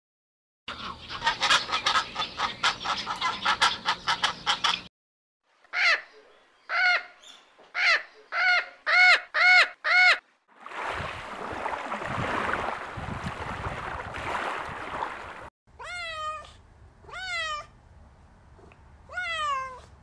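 A run of different animal calls, one after another. First comes a stretch of rapid clicking chatter, then about eight rising-and-falling calls that grow louder. A few seconds of harsh, noisy screeching follow, and near the end come four quick calls that fall steeply in pitch.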